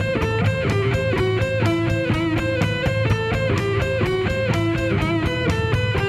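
Instrumental rock backing music with electric guitar, steady held notes over a fast, even beat.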